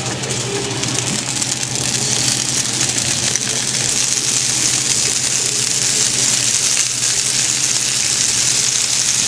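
Chicken breasts sizzling in hot olive oil in a frying pan, a steady sizzle that grows louder about two seconds in, over a steady low hum.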